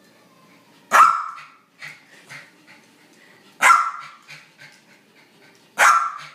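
Small terrier barking sharply three times, about two and a half seconds apart, with fainter short sounds between the barks.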